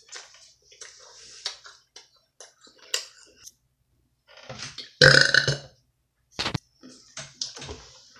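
A woman's loud, low burp about five seconds in, among short wet smacking and clicking mouth noises from eating pizza.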